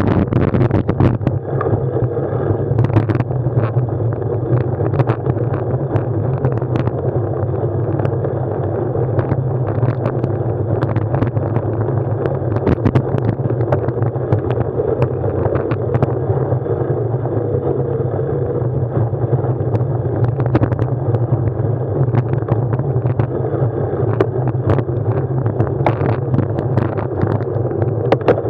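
A vehicle's engine running steadily at an even speed, close to the microphone, with scattered short knocks and rattles.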